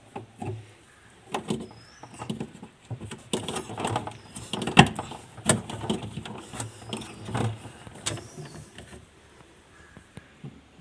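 A run of irregular clicks, knocks and clatter, loudest about five seconds in and dying down near the end, as of parts and tools being handled; faint bird chirps in the background.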